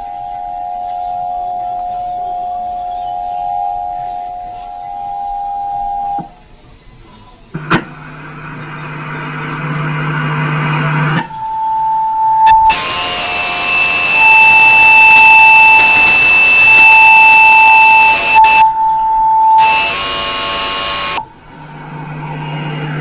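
Emergency Alert System broadcast signals: a steady two-tone alert sound for about six seconds, then after a short gap a loud, harsh, buzzy electronic signal with a steady tone running through it. It stops abruptly near the end, just before the tornado warning message is read out again.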